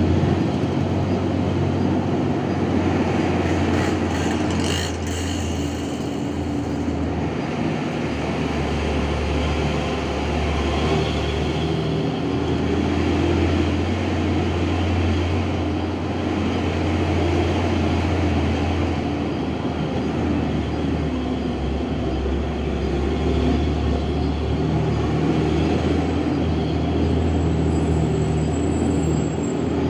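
Steady engine hum and road noise of a vehicle driving along a road, heard from inside the moving vehicle, with a deep low drone throughout.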